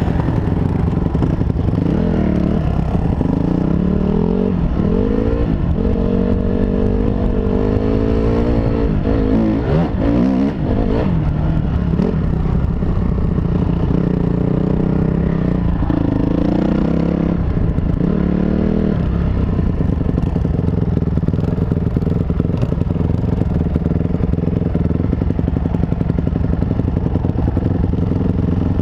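2005 Honda CRF250R's single-cylinder four-stroke engine pulling away and riding a dirt trail, its pitch rising and falling with throttle and gear changes for the first twenty seconds or so, then running more steadily.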